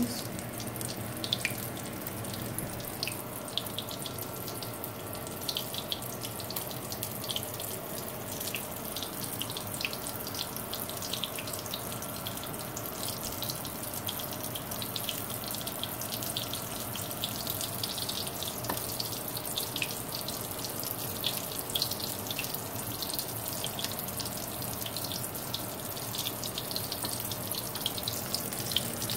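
Breaded cube steak frying in hot lard in a stainless steel skillet: a steady sizzle with many small crackles and pops.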